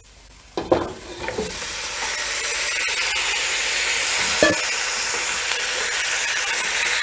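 Raw chicken pieces dropped into hot oil with curry powder, garlic and shallots in a stainless steel pot: a thud about half a second in, then sizzling that builds over the next second and stays steady as the chicken is stirred with wooden chopsticks. A single knock comes a little past the middle.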